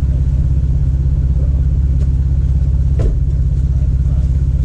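A vehicle engine running steadily with a low, even throb, and a single clunk about three seconds in.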